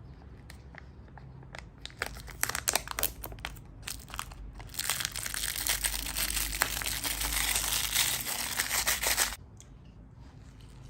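Wrapper or packaging being crumpled by hand: scattered crackles at first, then about four seconds of dense, loud crinkling that stops suddenly.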